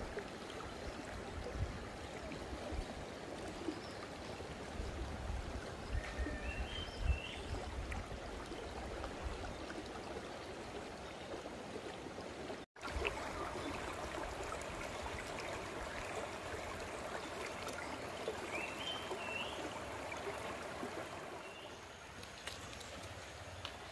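Shallow river water rushing steadily over stones. The sound drops out for an instant about halfway through, then carries on.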